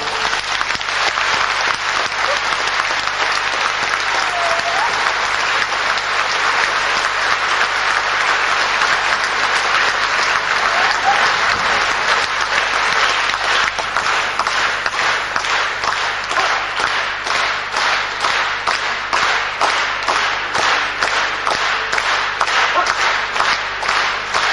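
Large concert-hall audience applauding after a song ends. About halfway through, the scattered clapping settles into steady rhythmic clapping in unison.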